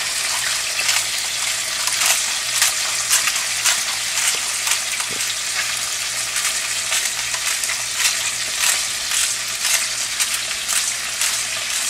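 Chicken pieces frying skin side down in hot olive oil in a stainless steel pan: a steady sizzle with frequent crackling pops.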